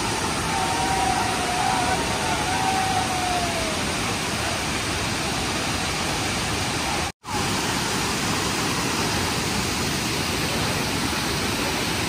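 Tirathgarh waterfall's wide cascades rushing steadily over rock ledges, a dense even wash of falling water, with faint voices in the first few seconds. The sound cuts out for an instant about seven seconds in.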